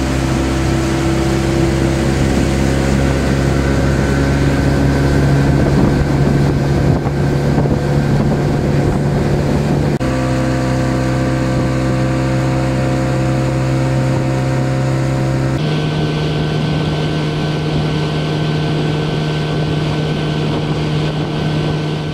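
Outboard motor driving a small aluminium boat at speed, running steadily, with wind on the microphone and water rushing past the hull. The engine note shifts abruptly twice, about ten and fifteen seconds in.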